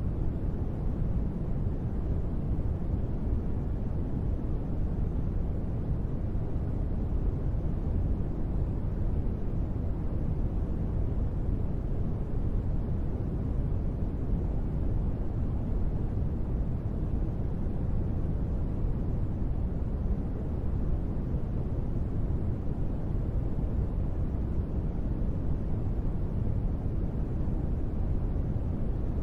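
Steady, unchanging noise from a sleep noise track: a deep, even rush weighted to the low end, with little hiss on top.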